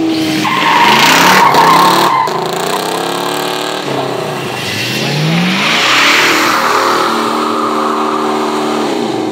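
Car engine revving hard as its wheels spin on a snow-covered road, the revs rising and falling, with two loud surges about a second in and again about six seconds in, each carrying a rush of noise from the spinning tyres.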